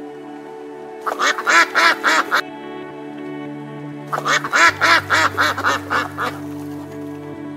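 Waterfowl quacking in two bursts of quick, repeated calls: one about a second in, a longer one about four seconds in. Steady background music plays underneath.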